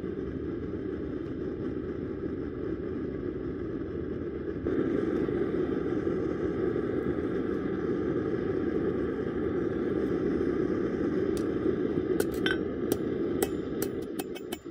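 Gas forge burner running with a steady low rushing noise, a little louder from about a third of the way in. Near the end come sharp metal clinks as the hot rebar is handled with tongs and laid on the anvil, then the first hammer strikes.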